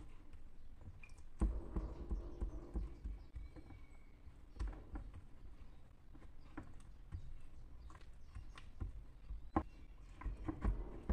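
Wet hands patting and pressing soft yeast dough out across a metal baking tray, with irregular soft knocks and slaps as the tray shifts under the hands.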